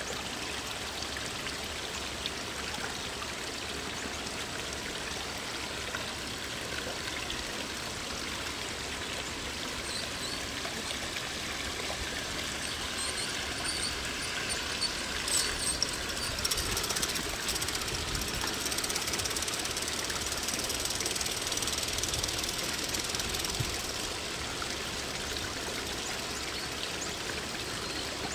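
Steady splashing of a small garden-pond waterfall. From about ten seconds in, a G-scale FEF-3 4-8-4 model steam locomotive with a Zimo sound decoder comes past pulling passenger cars: its chuffing and its wheels on the track rise over the water, with a few clicks, then fade again near the end.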